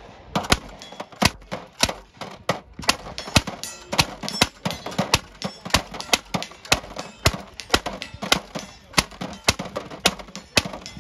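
Replica M1862 .58-calibre Gatling gun firing a steady string of shots as its hand crank is turned, about three shots a second.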